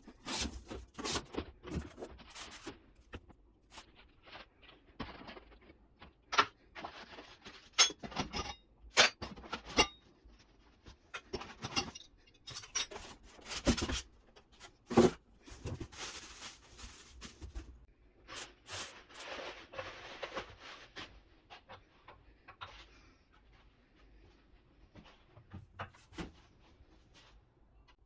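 Handling noises as miter saw parts are worked on: irregular clicks and knocks of hard parts, with stretches of rustling. The knocks are loudest in the middle and the sounds grow faint near the end.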